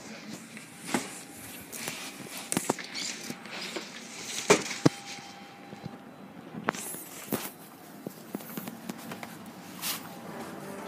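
Scattered knocks, taps and rustles of footsteps and handheld-camera handling noise as someone walks, with the two loudest knocks close together about four and a half seconds in.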